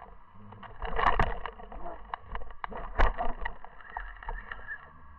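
Underwater sound picked up by a camera lying on the sea bottom: scattered sharp clicks and knocks over a low rumble, with louder clusters of knocks about a second in and again about three seconds in.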